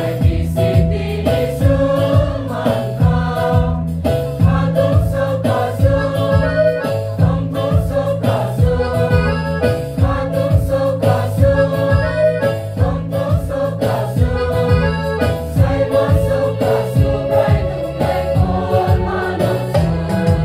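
Church choir of young men and women singing together, with a steady beat under the voices.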